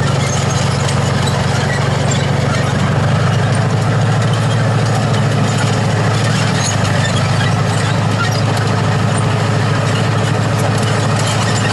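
Engine of a German Panzerkampfwagen tank running at low speed, a deep steady rumble whose pulsing beat becomes more even and distinct about three seconds in.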